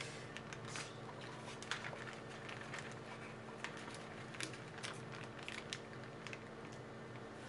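A plastic retort pouch crinkling and crackling in irregular short clicks as it is squeezed and tipped, with thick sauce and a meat patty squishing out into a bowl. A steady low hum runs beneath.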